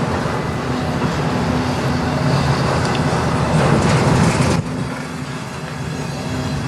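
CN manifest freight train's cars rolling past, a steady rumble of wheels on the rails, with a sudden dip in loudness a little over halfway through.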